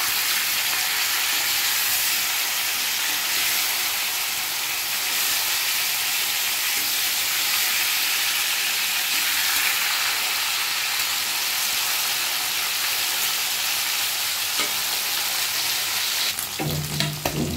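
Tilapia pieces sizzling steadily as they fry in hot mustard oil in a wok, the second side browning.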